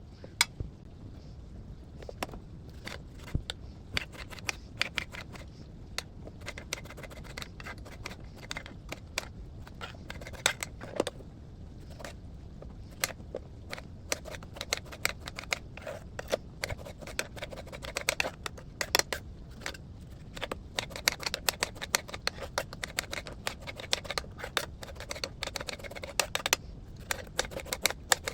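Green beans being cut into pieces: a run of irregular short, sharp snips and clicks that comes faster and denser in the second half.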